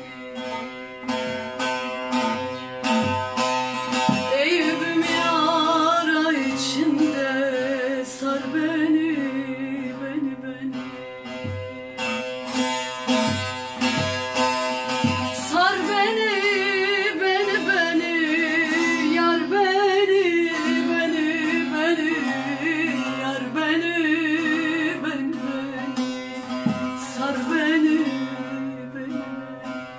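A woman singing a Turkish folk song (türkü) in long, wavering, ornamented phrases. She accompanies herself on a divan bağlama, a large long-necked Turkish lute, which is strummed and plucked throughout.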